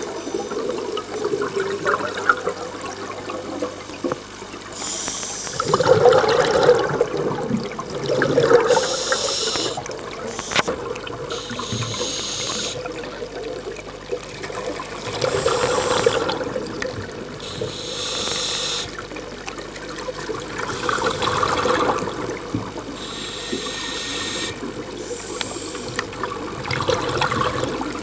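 Scuba diver breathing underwater through a regulator: a hiss on each inhalation, then a bubbling rush of exhaled air, a breath every few seconds.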